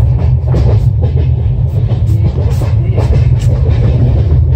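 Passenger train running at speed, heard from inside the coach: a steady low rumble of the wheels on the track, with faint irregular clicks.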